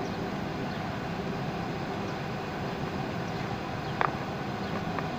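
Steady low background rumble, with a single short click about four seconds in from the plastic industrial plug and socket being handled.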